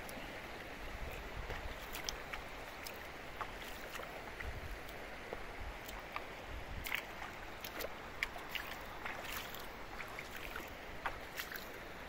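Water splashing and sloshing in irregular strokes as someone wades across a cold, shallow river, over the steady rush of the current.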